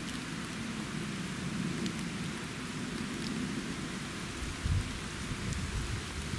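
Steady rain falling on the bush, an even hiss with a low rumble underneath and a couple of dull thumps about two-thirds of the way through.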